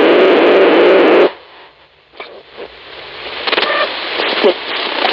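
Shortwave radio jamming noise from an Icom IC-7300 receiver in AM mode: a dense, loud hiss that cuts off about a second in as the radio is tuned away. Quieter static with scattered clicks and brief snatches of signal follows while the dial sweeps up the 6 MHz band.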